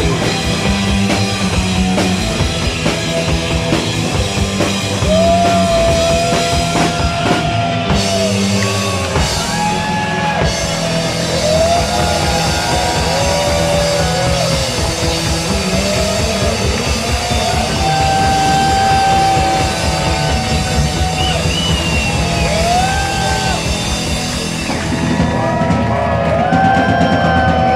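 Live rock band playing loudly: pounding drums and bass under long held electric guitar notes that bend up and down, with no singing.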